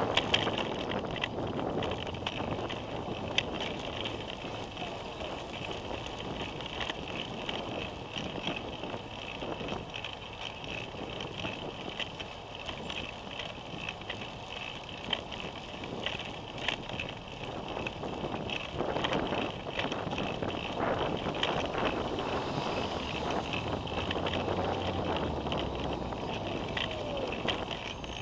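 Ride noise from a camera mounted on a moving bicycle: a steady rush with many small clicks and rattles as the bike rolls along the city bike lane, with street traffic behind it.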